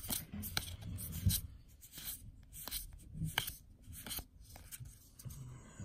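Magic: The Gathering trading cards being thumbed through by hand, card edges sliding against each other, with a run of soft, irregular clicks as each card is flicked to the back of the stack.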